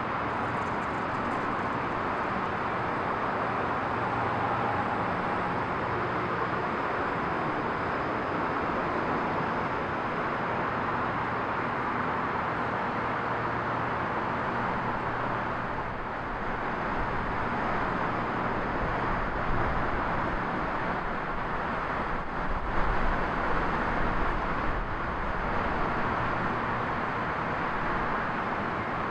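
Vintage single-ended streetcar being swung round on a powered turntable: a steady mechanical hum over a constant noisy rumble, with a few louder rumbling bumps about two-thirds of the way through.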